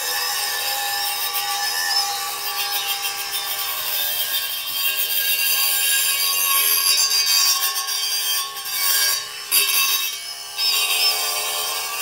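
A dense, steady buzzing chorus of night insects in a rice paddy, with small high chirps over it. Around two-thirds of the way in there are a few brief scratchy rustles.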